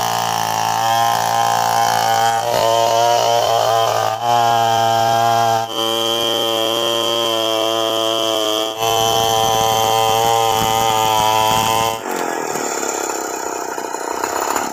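Two-stroke chainsaw running at full throttle while ripping lengthwise through an Antipolo log to cut boards, with a high, steady engine note. The sound breaks off and resumes abruptly several times, and after about twelve seconds it turns rougher, with less of a clear engine tone.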